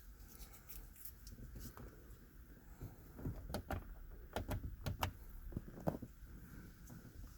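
Faint scattered clicks and knocks, a cluster of them in the middle, over a low steady rumble.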